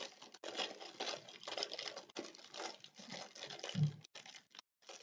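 Clear plastic packaging crinkling in irregular rustles as fingers work it open.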